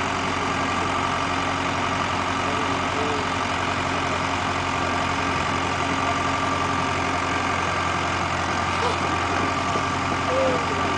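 Vehicle engines running steadily at low revs, a constant unchanging drone, during a slow chain tow of a stuck Jeep Wrangler out of deep mud.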